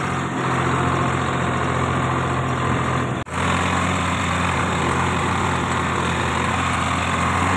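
Tractor diesel engine running steadily, heard close up from the driver's seat. The sound cuts out for an instant a little over three seconds in, then resumes.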